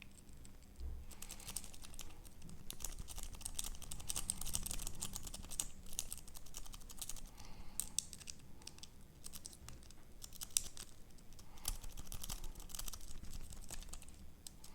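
Bogotá rake pick scraping and clicking rapidly over the pins of a dimple padlock's cylinder while a Y tension wrench holds the core in a false set: a dense run of fine, irregular metallic ticks and scratches.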